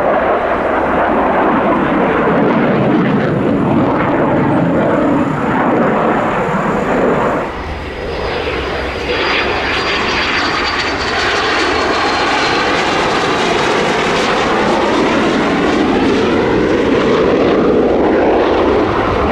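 Loud jet noise from a Saab JAS-39C Gripen's single RM12 turbofan, dipping briefly about seven seconds in. A high-pitched whine then sounds over the noise and slowly falls in pitch for about four seconds, with the tone sweeping as the jet passes.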